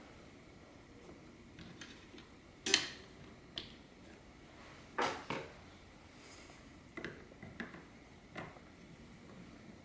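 A series of separate sharp clicks and clinks from small hard lock parts being handled and fitted together during reassembly. The loudest comes about three seconds in, with a double knock around five seconds and a few lighter clicks later.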